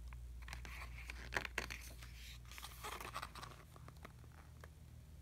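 Thick paper pages of a K-pop album photo book being turned and handled, with rustling and a few light taps over the first three seconds or so, then quieter.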